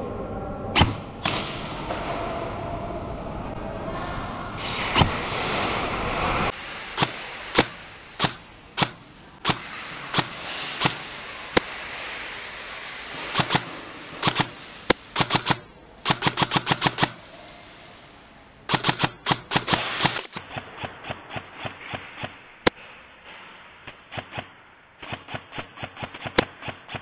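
Airsoft guns firing: scattered single shots and short rapid strings of several shots, each a sharp crack. After the first few seconds the shots come thick and fast.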